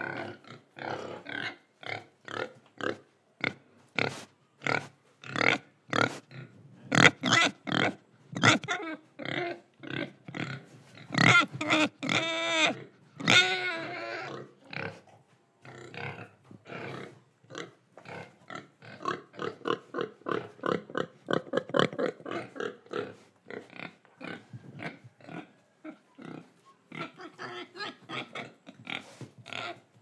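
Young domestic pigs grunting in quick, short grunts, two or three a second. About a third of the way in, one pig lets out a longer, higher-pitched call that rises and falls. The grunting thins out briefly about four-fifths of the way through.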